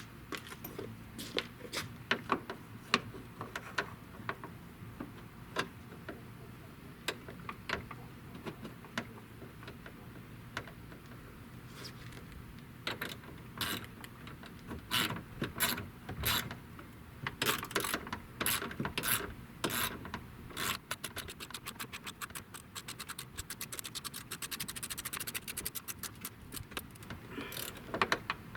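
Hand ratchet and socket driving a dash bolt, with scattered clicks and knocks of the tool being handled at first, then a fast, even run of ratchet clicks near the end as the bolt is run in.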